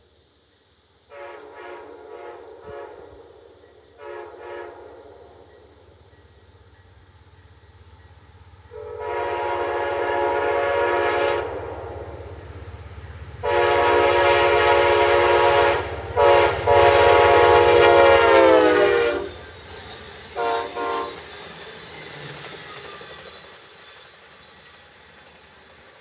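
Amtrak P42DC diesel locomotive's multi-chime air horn sounding in a horn show. Short fluttering toots come first, then the grade-crossing pattern: long, long, short, long. The last blast drops in pitch as the engine passes, and two short toots follow, with the locomotive's low engine rumble underneath.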